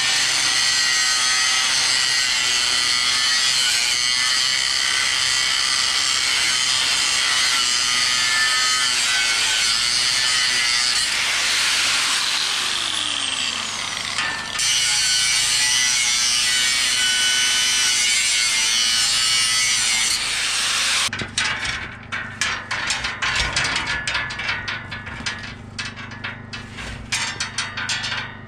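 Angle grinder cutting parts off a sawmill shipping crate: a steady motor whine that winds down around the middle and starts up again about two seconds later. From about two-thirds through it turns into a rough, choppy run of irregular sharp scraping and rattling.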